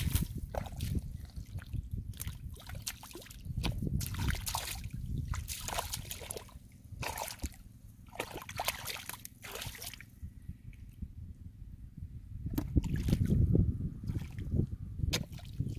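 Hands and bare feet working through shallow muddy water: an irregular run of short wet splashes, squelches and drips. A louder low rumble comes in near the end.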